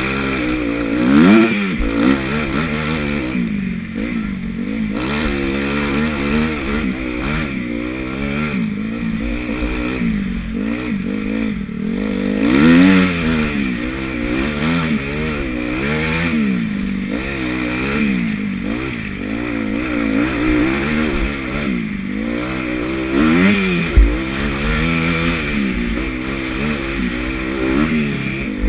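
Honda CRF250 four-stroke single-cylinder motocross engine, heard from the rider's helmet, revving up and dropping back again and again as the bike is ridden round the track. A single sharp thump near the end.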